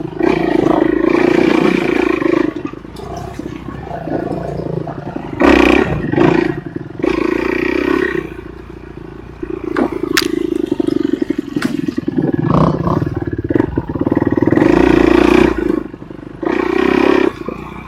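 Enduro motorcycle engine revving in repeated bursts, the throttle opened and closed over and over so the engine note swells and drops every few seconds.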